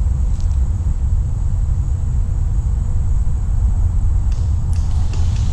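Steady low rumble on the scope-mounted camera's microphone, with a faint steady high whine and a few faint clicks near the end.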